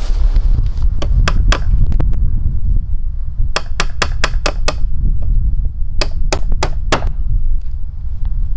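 Hammer strikes in quick runs: three, then six, then four, over a steady low rumble of wind on the microphone.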